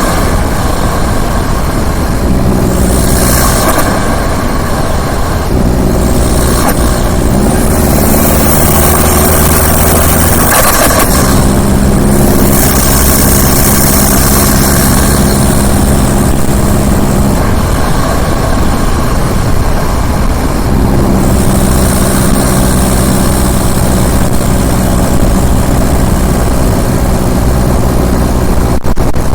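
Turbo diesel engine running, holding steady speeds that change several times, with the engine note shifting up or down every few seconds over a constant hiss.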